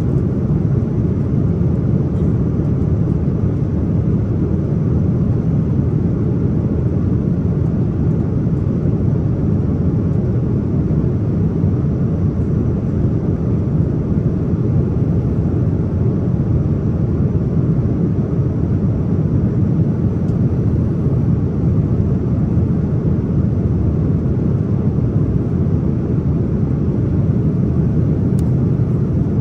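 Steady low rumble of a Boeing 787-9 airliner's engines and airflow inside the passenger cabin, holding an even level.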